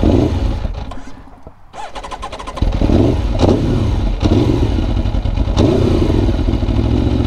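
2017 Aprilia Tuono V4 1100 Factory's V4 engine being started: the starter cranks, then the engine catches about two and a half seconds in and settles into a steady idle with a few brief rises in pitch.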